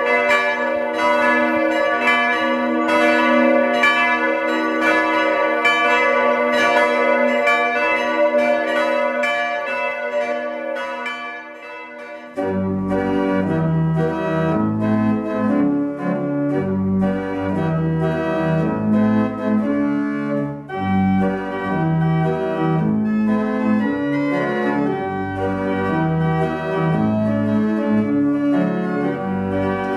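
Church bells ringing, fading out over about the first twelve seconds. The sound then cuts suddenly to a pipe organ playing, with low bass notes changing beneath the chords.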